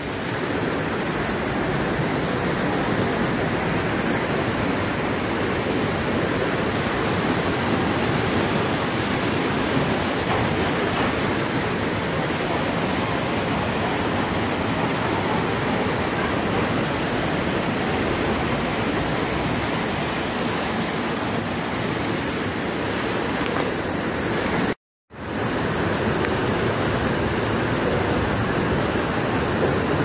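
Steady, even rushing of water from an artificial rock waterfall, unbroken except for a brief dropout about 25 seconds in.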